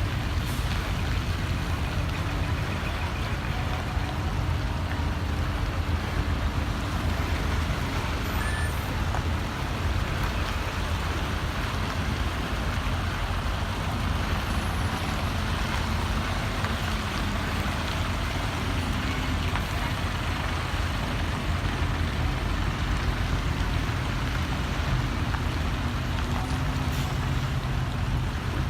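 Steady low rumble of large diesel truck engines running as the vehicles pull out.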